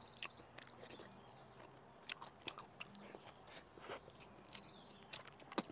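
Close-up mouth sounds of someone chewing a bite of braised beef-head meat with its skin: soft wet smacks and clicks at irregular intervals, with a sharper smack a little before the end.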